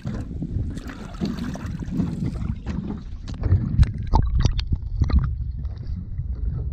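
Handling noise in an aluminum jon boat: scattered sharp knocks and bumps against the hull, clustered a little past the middle, over water sloshing and a steady low wind rumble on the microphone.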